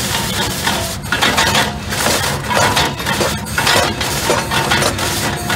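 Marion Model 21 steam shovel at work: its steam engine and hoisting gear running with irregular clanking and rattling over a steady low rumble.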